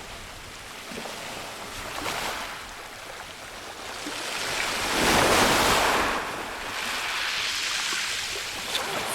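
Rough Black Sea surf: waves breaking and washing in, with the loudest wave about halfway through and a smaller one following.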